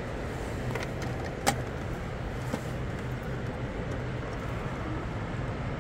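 Steady vehicle rumble, with a sharp click about a second and a half in.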